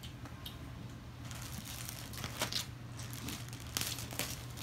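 Rustling and crinkling as new clothes and their plastic packaging are handled, with a few sharper crinkles about two and a half and four seconds in.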